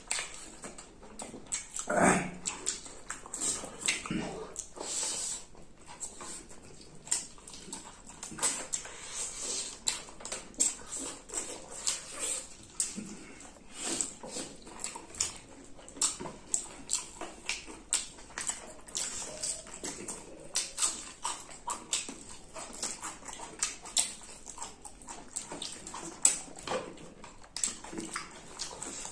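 Close-up mukbang eating sounds from two people eating rice and chicken with their hands: wet chewing and lip-smacking, with many short mouth clicks. One louder mouth sound comes about two seconds in.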